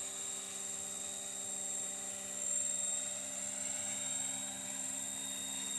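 Align T-Rex 600E electric RC helicopter in flight: a steady whine of its motor and spinning rotors, swelling slightly about halfway through.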